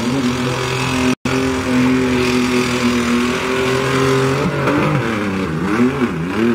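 Pickup truck engine at high revs, held steady for several seconds, then dropping and climbing again several times near the end as the throttle is worked in the mud. The sound cuts out completely for an instant about a second in.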